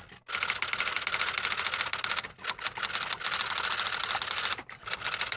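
Typewriter typing sound effect: a fast, even run of key clicks, with a short break near the start, another about halfway through, and one near the end.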